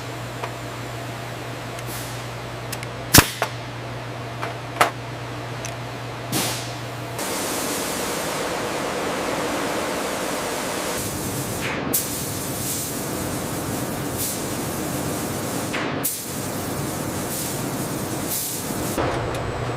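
Factory machinery: a steady mains-like hum with several sharp metallic knocks, the loudest about three seconds in. About seven seconds in, it gives way to a louder, even machine noise with occasional clicks.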